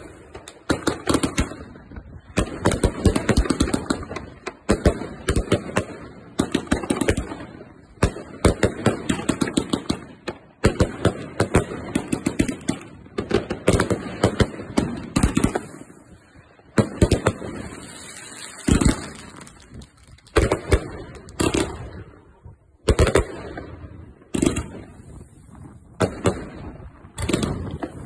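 Wolff Furious consumer firework battery firing: rapid volleys of shots and bursting reports with crackling, coming in waves with brief pauses between them.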